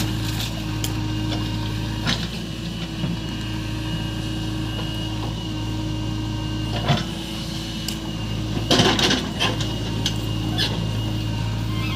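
JCB 3DX backhoe loader's diesel engine running steadily under load while the backhoe works. Single sharp knocks come now and then, and a burst of clatter comes about nine seconds in, as the bucket dumps red soil and digs back into the pile.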